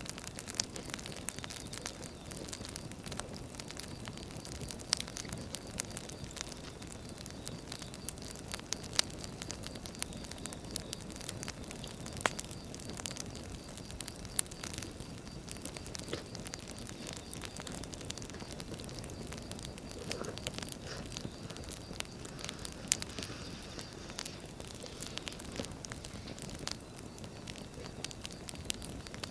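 Wood fire burning: irregular sharp pops and crackles over a steady low rumble of flames.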